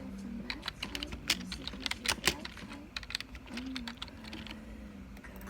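Irregular clicking noises, a quick scatter of sharp clicks that are busiest in the middle and thin out toward the end.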